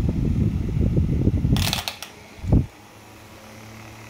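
Small homemade electric fan with a red plastic propeller running. A loud, uneven low rumble lasts about two seconds, with a brief rustle near its end and a single thump. After that the motor settles into a quieter steady hum.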